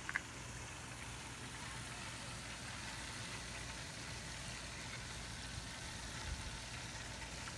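Hot cooking oil sizzling steadily, with a low steady hum beneath it and a short sharp click at the very start.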